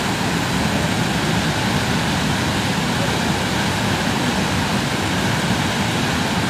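A mountain river in flash flood, a muddy torrent rushing through its channel with a loud, steady, unbroken noise.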